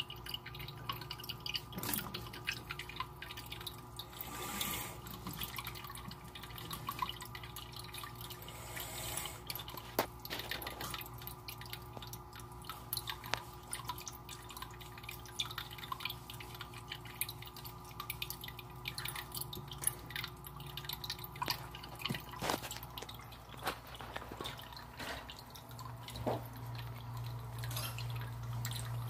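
Water trickling and dripping in an aquarium tank, many small irregular drips and splashes, over a steady low hum.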